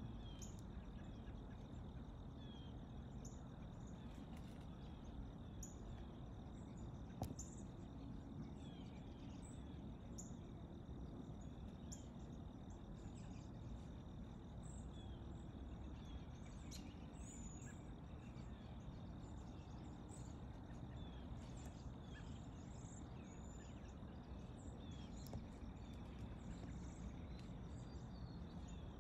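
Quiet autumn field ambience: small birds give short, high chirps every second or so over a steady low rumble and a thin, steady high insect tone. A single sharp click about seven seconds in.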